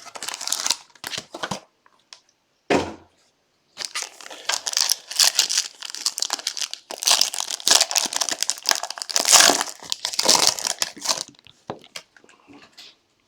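Plastic wrapping of a sealed trading-card box being torn open and crumpled, crinkling in irregular bursts, most densely through the middle of the stretch.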